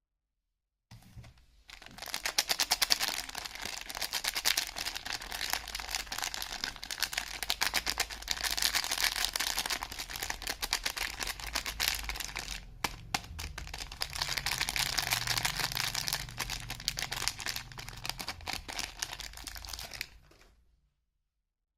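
Soap packaging crinkling as it is handled and peeled open: a dense run of fine crackles, with a short break and a few sharp clicks about halfway through.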